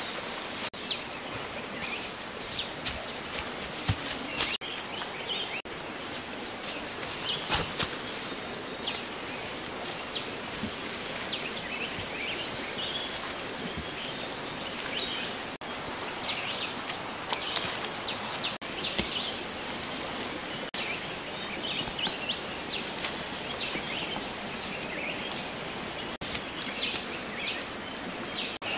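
Forest ambience: many short bird chirps scattered over a steady hiss, with a few sharp knocks and rustles from tree branches being climbed and shaken.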